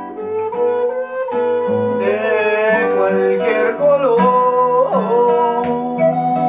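Music: a progressive track with sustained chords, plucked guitar-like notes and a sliding, wavering lead melody.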